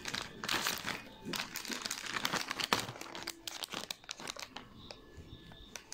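Plastic snack packet crinkling in irregular bursts as hands fold its top over and fit a bag clip onto it.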